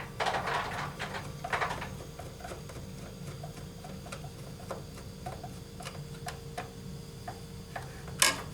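Hand work on a machine's plastic case: two brief scrapes near the start, then a run of small, light clicks about two or three a second.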